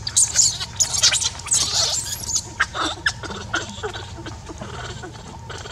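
Macaques squealing: rapid shrill squeaks and short screeches, thickest in the first half, then thinning to scattered fainter chirps.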